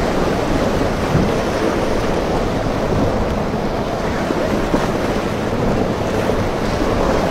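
Wind buffeting the microphone over steady surf and breaking waves.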